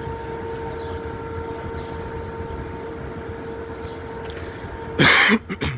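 City street traffic rumble with a steady hum, and a brief loud burst of noise about five seconds in, followed by two shorter ones.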